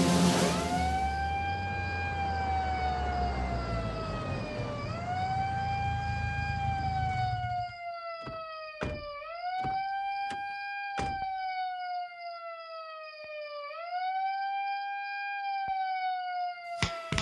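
Siren wailing: a tone that sweeps up quickly and then falls slowly, repeating about every four and a half seconds. A low rumble under it stops suddenly about eight seconds in, and a few sharp clicks come after.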